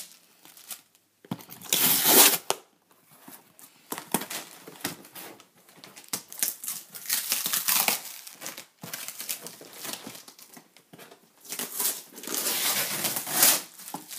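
Clear plastic packing tape being pulled and torn off a cardboard shipping box, with crinkling tape and rustling cardboard. The loudest rips come about two seconds in and again near the end.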